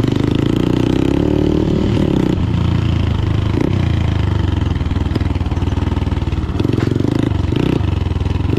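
Motorcycle engine running hard as the bike is ridden on a dirt track, its pitch rising and falling as the throttle is opened and eased.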